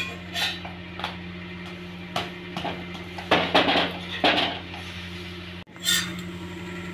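Flat metal spatula scraping and clinking against an iron dosa griddle as a sweet poli is pressed and lifted off. It comes as a series of short scrapes and taps, the longest and loudest scraping about three and a half seconds in.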